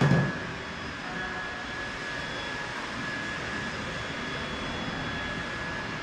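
A heavy-duty tow truck's engine runs steadily with a constant high whine from its hydraulic system as the repaired boom is tested. A short heavy thump at the very start.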